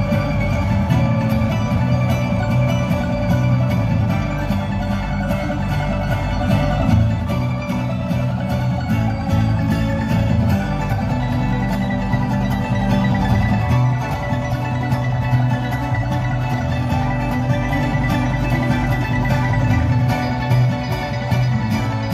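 Bluegrass string band playing live: banjo picking over two acoustic guitars and upright bass, at a steady full level.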